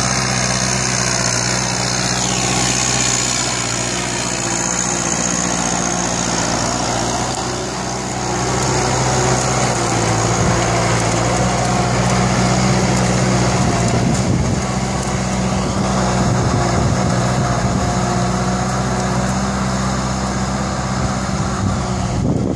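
Kubota farm tractor's diesel engine running steadily under load while it pulls a disc plough through dry soil. It runs a little louder from about eight seconds in.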